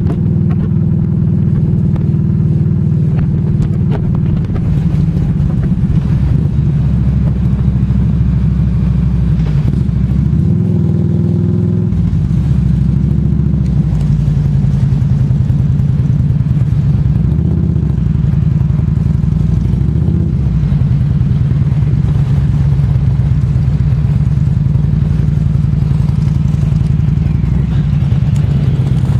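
A motorcycle trike's engine running steadily under way, heard from the pillion seat. Its note dips and then rises again about ten to twelve seconds in as the speed changes.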